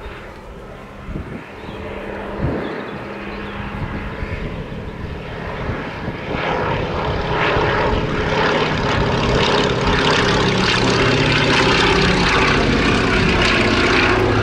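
Fairey Swordfish biplane's Bristol Pegasus nine-cylinder radial engine and propeller running in flight, a steady engine note that grows louder as the aircraft comes closer and is loudest near the end.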